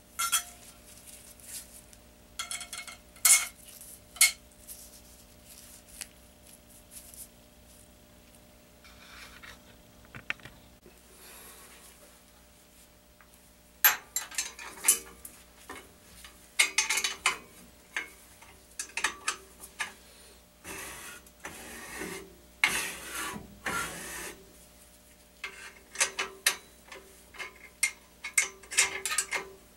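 Metal parts handled by hand: irregular clinks, knocks and scraping, over a faint steady hum.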